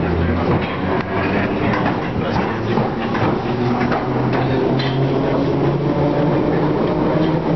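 London Underground 1967 Stock train running at speed from a tunnel into a station without stopping, with wheel clicks over rail joints and a low steady hum that steps in pitch partway through.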